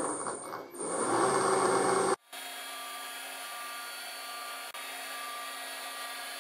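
Milling machine running: a loud rubbing, scraping noise with a high steady whine for about two seconds, which cuts off abruptly and gives way to a quieter, steady machine hum with several fixed tones.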